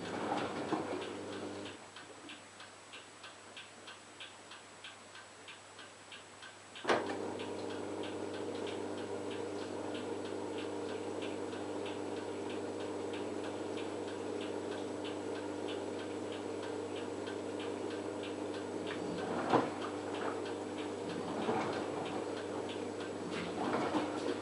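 LG F1443 washing machine running a wash cycle: a steady machine hum that drops away about two seconds in and comes back with a sharp click about seven seconds in, over an even ticking of about three a second. A few soft knocks come near the end.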